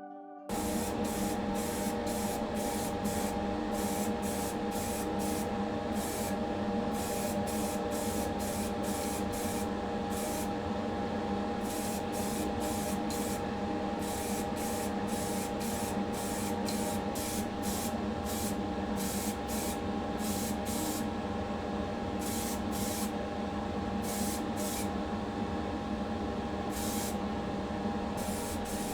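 Primer being sprayed onto a diecast model's casting: many short on-off hisses of spray over a steady motor hum.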